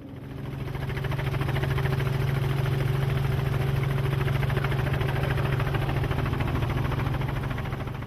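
Engine running steadily, a constant low drone with a fast fine pulsing, fading in at the start.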